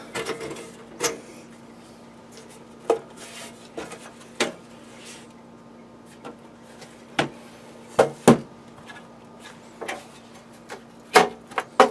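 Sheet-metal cover of a Cisco router knocking and scraping against the chassis as it is worked back onto its slides, in scattered clicks with a louder pair about eight seconds in and another near the end. The cover is sticking and will not slide on easily.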